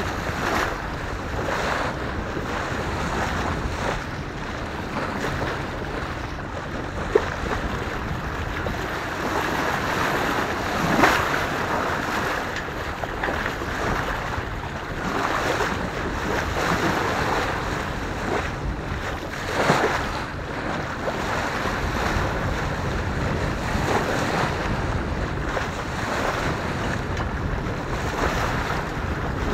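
Sailboat's bow cutting through the sea: water rushing and splashing along the hull, with wind buffeting the microphone. A few louder surges of spray stand out, about eleven and twenty seconds in.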